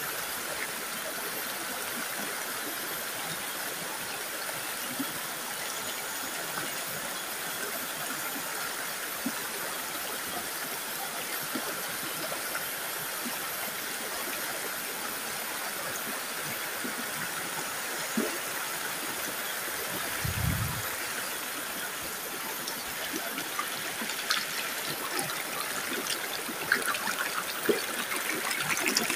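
Shallow rocky stream rushing steadily over boulders. There is a brief low thump about two-thirds of the way in. In the last few seconds the water splashes and bubbles closer over a rock.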